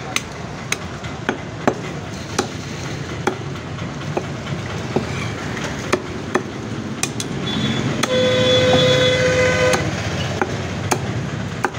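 Heavy cleaver chopping bone-in country chicken on a wooden block, with a sharp chop every half second to a second. About eight seconds in, a vehicle horn sounds for nearly two seconds over steady traffic noise.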